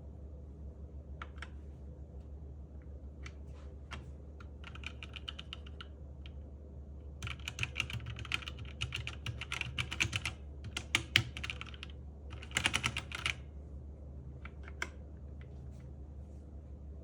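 Typing on a Zifriend KA646 mechanical keyboard. A few scattered key presses give way to fast runs of keystrokes in the middle, then taper to a few single clicks near the end, over a steady low hum.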